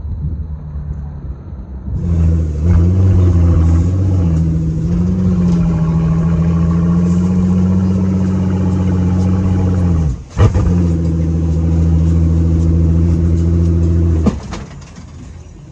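Car engine held at a steady, loud pitch under throttle for several seconds, with one short break about ten seconds in and a lower rumble before and after.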